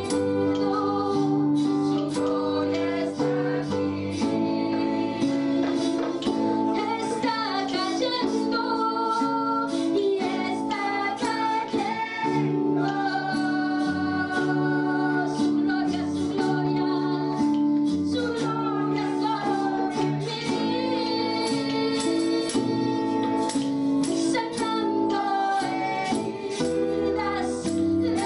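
Live worship song: a woman sings lead into a microphone, with a man's voice joining, over electric bass and guitar.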